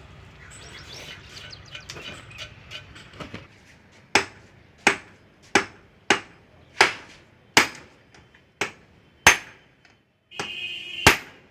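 Hammer striking metal: light tool clinks, then a run of about nine sharp, ringing blows, roughly one every 0.7 s, with a short scrape just before the last blow.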